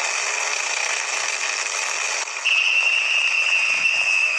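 A voice drawing out a long, harsh, throaty 'khhh': the Spanish jota, the sound of the 'g' in colegio. About two and a half seconds in it gets louder and takes on a whistling edge.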